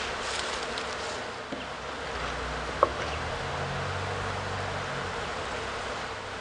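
Honeybees buzzing steadily around an opened wooden hive, with one sharp tap nearly three seconds in.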